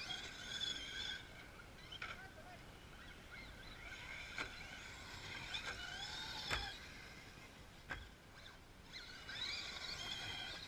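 Electric motors of Traxxas RC trucks (Stampede and Slash 4x4) whining faintly, the pitch rising and falling with the throttle, with a few sharp knocks as the trucks land and hit the dirt.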